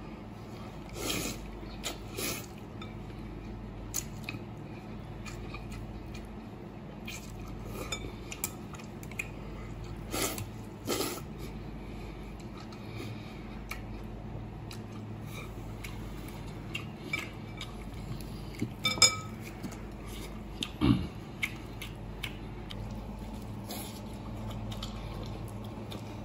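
Chopsticks clinking and scraping against a glass bowl in scattered short knocks, between mouthfuls of noodles being slurped and chewed.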